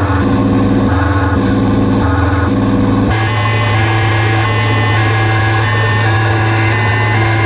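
Harsh noise music: a loud, dense electronic drone over a steady low hum, with layered tones that jump to new pitches every half-second or so and settle into a different pattern about three seconds in.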